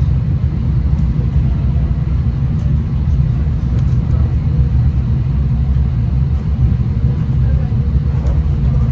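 Steady low rumble of a moving V/Line passenger train, heard from inside the carriage.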